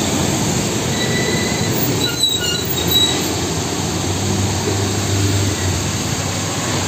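Fuel tanker trucks driving past on a wet road: steady engine and tyre noise, with a few faint high squeals about one to three seconds in and a low engine hum swelling about four seconds in.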